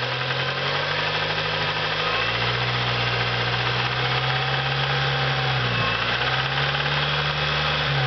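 Acura RSX's K-series four-cylinder engine running with a rapid knock, its engine note shifting up and down slightly a few times. The knock was found to be a spun bearing, though it sounds like a valvetrain tick up close.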